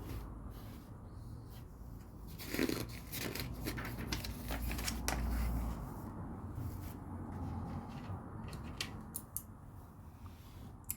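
LEGO plastic pieces being handled and fitted together: scattered sharp clicks and light plastic rustling, busiest from about two and a half to six seconds in, over a low hum.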